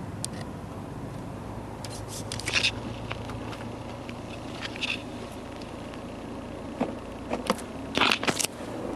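Steady low cabin hum of a MINI Cooper Countryman S with its engine running, broken by a few short clicks and rattles, the loudest cluster near the end.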